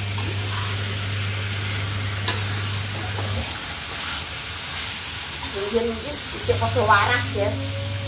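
Chicken wings frying in a thick spiced sauce in a wok: a steady sizzle while a spatula stirs and scrapes through the pan.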